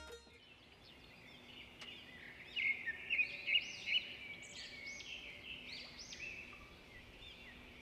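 Countryside ambience of small birds chirping and twittering, many short calls overlapping, busiest from about two to four seconds in.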